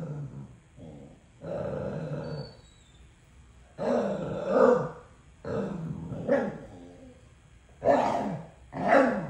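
Two dogs growling back and forth over a toy, in about six drawn-out bouts that rise and fall in pitch, the loudest near the middle and near the end.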